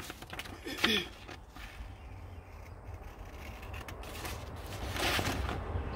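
Scissors cutting through a paper template, with the paper rustling: a few short, crisp snips over a low, steady rumble, the loudest near the end.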